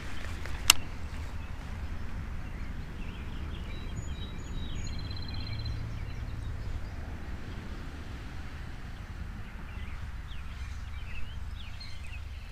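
Birds chirping now and then over a steady low rumble, with one sharp click about a second in.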